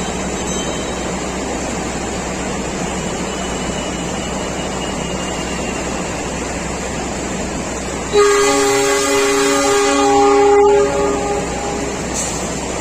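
Heavy rain hissing steadily. About eight seconds in, a train locomotive's air horn sounds one chord-like blast lasting nearly three seconds.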